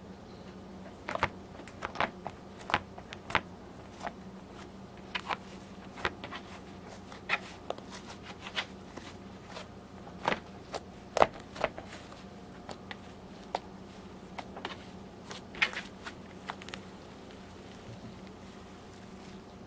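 Fluffy shaving-cream slime being squeezed and stretched by hand, giving irregular sharp clicks and pops of trapped air, some much louder than others, over a steady low hum.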